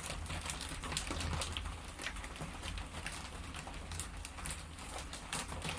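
Low steady hum of an electric potter's wheel turning, with scattered faint ticks over it.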